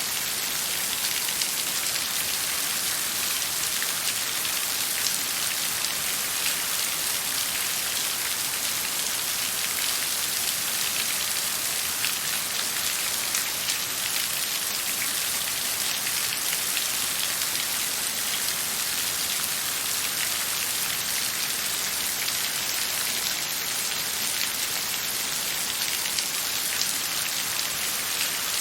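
Steady rain falling on a surface, a dense even hiss of many small drops, with no thunder.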